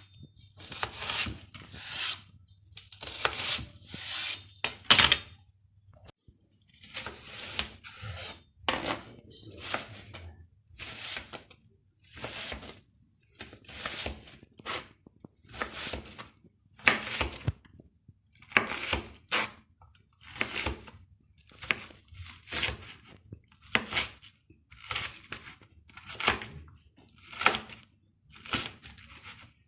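Sharp kitchen knife slicing an onion finely on a cutting board, a little more than one short stroke a second, with a brief pause about six seconds in.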